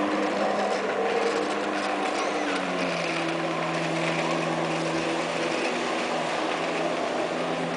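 Jet ski engine running steadily while towing a large inflatable sphere, heard from the shore; its pitch drops about three seconds in and then holds lower.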